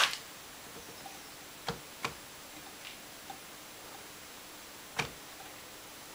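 A few short, sharp clicks on a workbench, three plainer ones about 1.7, 2 and 5 seconds in, over a faint steady hum. The tantalum capacitor on test does not pop: it was already blown.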